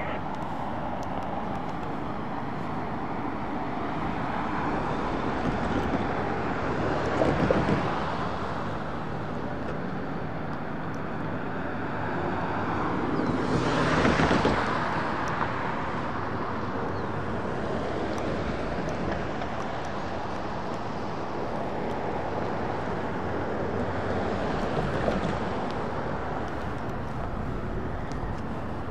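Road traffic: cars passing on the street, each rising and fading away, the loudest about seven and fourteen seconds in, over a steady traffic hum.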